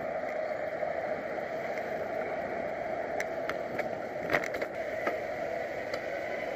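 Steady rushing wind and road noise picked up by a bicycle-mounted action camera while riding, with a few sharp clicks, the loudest about four seconds in.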